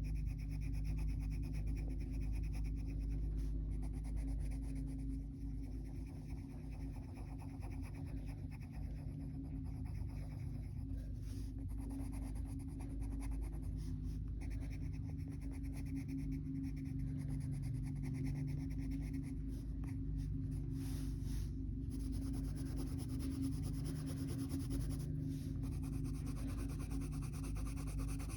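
Colored pencil being worked across a coloring-book page: a continuous soft scratching of pencil on paper, over a steady low hum.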